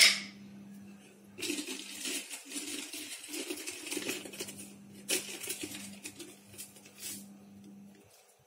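A sharp clink of a utensil against a steel mixing bowl right at the start, then a few seconds of faint, crackly rustling handling sounds with another click, over a steady low hum.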